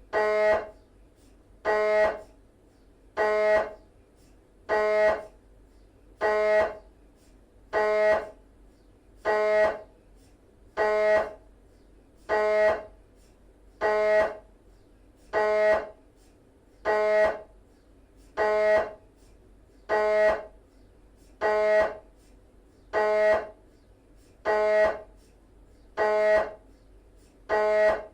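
GE 3T MRI scanner running an axial Cube T2 sequence (3D fast spin echo): the gradient coils give a pitched buzzing pulse about every one and a half seconds, each pulse lasting about half a second, with a low hum between them.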